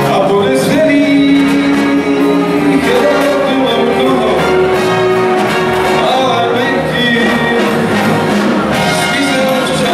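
Live big band playing: trumpets, trombones and saxophones over drums, guitar and keyboards, with held melodic notes over a steady beat in a large hall.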